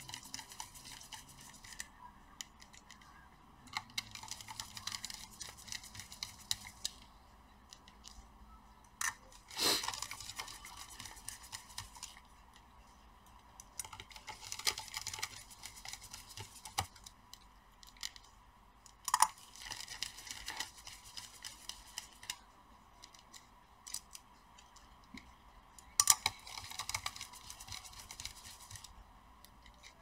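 A small screwdriver turning the heatsink screws on an Asus TUF F17 laptop's motherboard: short stretches of fine metallic ticking and scraping as the bit works in the screw heads, with a few sharper clicks.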